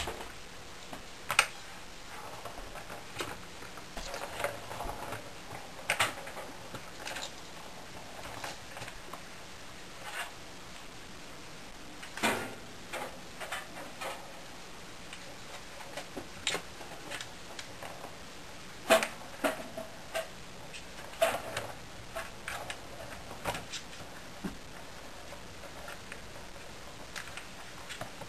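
Plastic Turbo Track cat toy being played with by kittens: scattered clicks and knocks as the ball and paws strike the plastic track, some sharp and loud, irregularly spaced over a steady low hiss.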